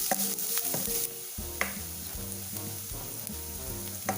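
Chopped onions sizzling in hot ghee in a kadai as they are stirred, the sizzle strongest in the first second, with a spatula knocking against the pan twice. Background music plays underneath.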